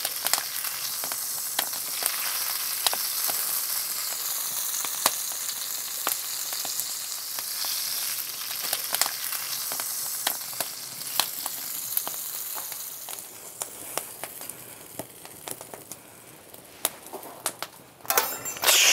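Halved lemons and sage sizzling and crackling in olive oil on a hot iron griddle plate, dying down after about thirteen seconds.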